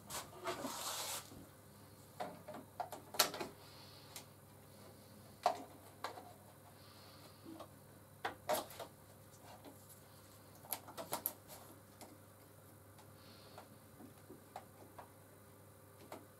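Scattered faint clicks and knocks of a clip-on LED lamp's plastic crocodile clip and swan-neck arms being handled and positioned on a scroll saw's metal arm, with a short rasp about half a second in.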